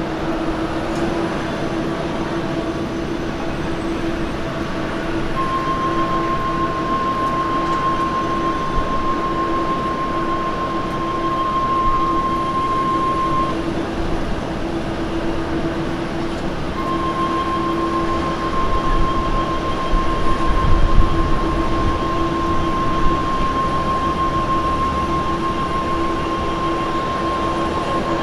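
Jet airliners taxiing on idle thrust, among them a United Boeing 777: a steady engine drone with a high whistle that drops out for about three seconds in the middle and then returns. A low rumble swells briefly about two-thirds of the way in.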